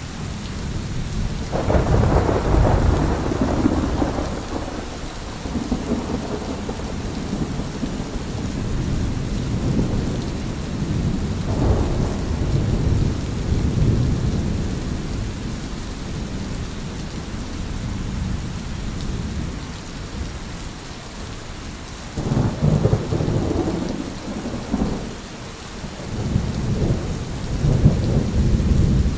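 Thunder rolling over a steady hiss of rain. A long deep rumble begins about two seconds in and carries on unevenly through the middle. A sudden louder peal comes near the three-quarter mark, and another rumble follows near the end.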